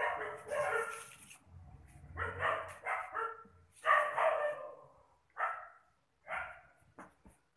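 A dog barking repeatedly, about eight short barks at irregular intervals. A few light clicks follow near the end.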